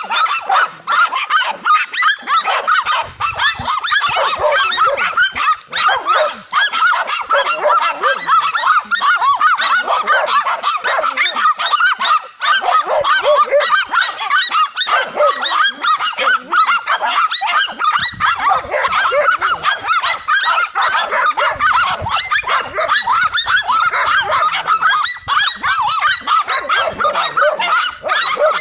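Several dogs barking without a break, their high-pitched barks overlapping.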